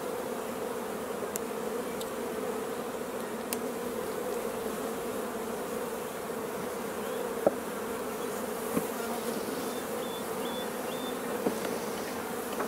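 Honeybee colony in an open hive humming steadily, with a few sharp clicks of the hive tool and wooden frames being worked, the loudest about seven seconds in.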